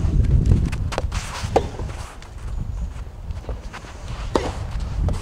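Soft tennis rally: several sharp hits of the rubber ball off rackets and court, spaced a second or more apart, with players' footsteps, over a steady low rumble.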